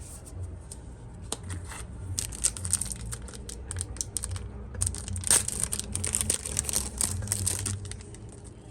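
Yu-Gi-Oh! booster pack's foil wrapper being crinkled and torn open by hand: a run of sharp crackles starting about two seconds in and stopping near the end.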